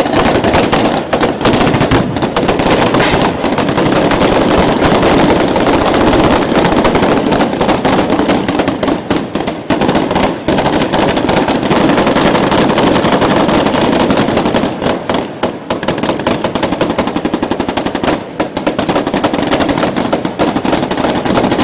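Sustained rapid automatic gunfire, a dense unbroken rattle of shots with brief lulls two thirds of the way through.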